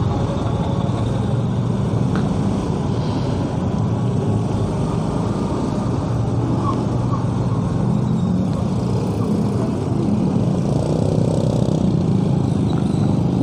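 Motorcycle engine running steadily at low speed in stop-and-go traffic, with the hum of surrounding cars and motorbikes.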